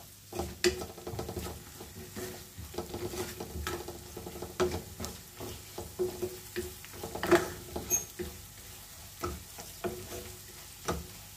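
Wooden spatula stirring and scraping around a metal frying pan, with irregular knocks against the pan, as sliced onions, green chillies and ground spices fry in oil with a light sizzle.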